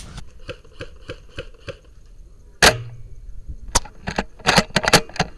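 Airsoft guns firing: a quick run of evenly spaced shots, then a single loud crack about two and a half seconds in, then a burst of sharp cracks near the end.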